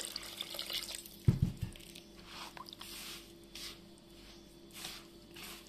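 Cold water poured into a bowl of semolina for harsha, then a dull knock about a second in, then a hand gathering the wet semolina into a loose dough in soft strokes about every half second.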